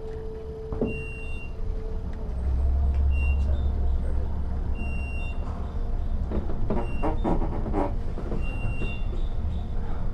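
Elevator car moving between floors: a steady low rumble that swells about two seconds in, with a few short high beeps now and then.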